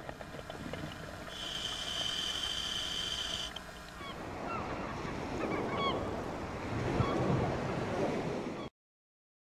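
Gulls calling, short rising-and-falling cries over the noise of open water, after a steady high-pitched whine in the first few seconds. The sound cuts off suddenly near the end.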